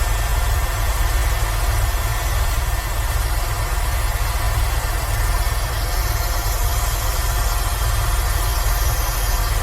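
Airbus H130 (Eco Star) helicopter in cruise flight: a steady, loud drone of rotor and turbine with a deep low throb underneath and a broad hiss on top, unchanging throughout.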